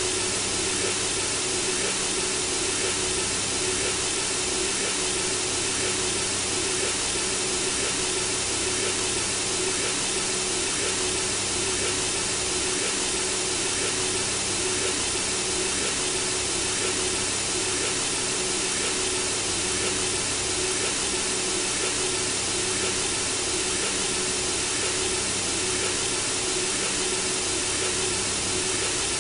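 Steady white noise from a synthesizer, an even hiss that does not change, with a faint steady low tone beneath it. It is played as a baby-sleep sound.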